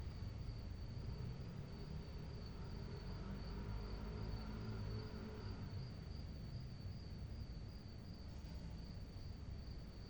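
Crickets chirping in a steady, fast-pulsing high trill, over a low rumble.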